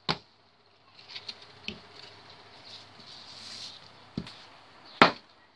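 Frozen cleaning-paste cubes being twisted and knocked out of a plastic ice cube tray: faint ticking and rustling as the cubes work loose and drop onto the table mat. Sharp knocks come at the start, about four seconds in, and a louder one about five seconds in.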